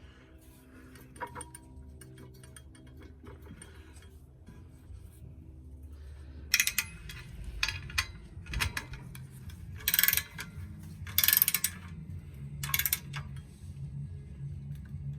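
Metal hardware and hand tools clinking and rattling while bolts and washers are fitted to mount a bench vise on its stand: quiet at first, then a series of short, sharp metallic clinks and scrapes of up to half a second each from about halfway on.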